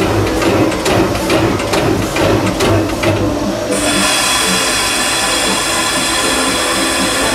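Steam locomotive cab sounds from a 1925 Baldwin engine on the move: rhythmic chuffing, about three beats a second. A bit over three seconds in, a steady high-pitched hissing whine starts suddenly and holds.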